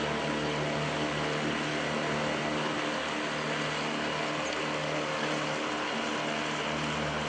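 Small boat's motor running steadily at a constant speed, a drone that holds one pitch, under way across floodwater.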